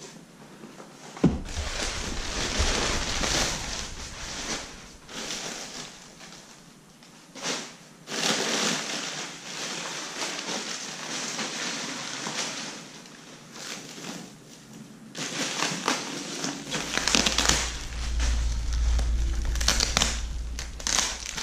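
Paper packing material and crinkle-cut paper shred rustled and crumpled by hand inside a cardboard box, on and off with short pauses. There is one sharp knock just over a second in.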